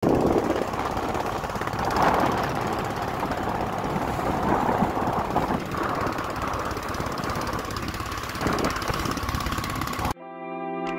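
Motorboat engine running steadily under a rush of wind and water noise. It cuts off suddenly near the end and music begins.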